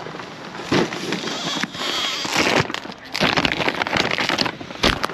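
Crackling, rustling handling noise with a few sharp knocks, as a camera is carried and swung about.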